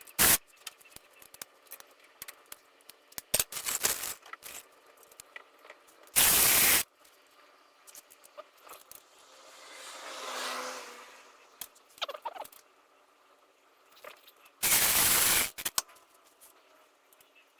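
Sped-up workshop sound from engine reassembly: rapid scattered clicks and clatter of tools and parts, with two loud noisy bursts about six seconds in and near the end, and a soft rising and falling hiss in the middle.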